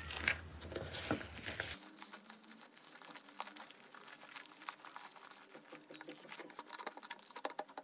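Fluffy slime squished and stretched by hand, giving a stream of small sticky crackles and pops that come thicker in the second half.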